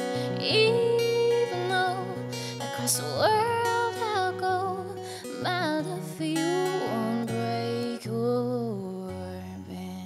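A woman singing slow, long-held notes with vibrato over an acoustic guitar in an indie folk-pop song. The music fades out near the end.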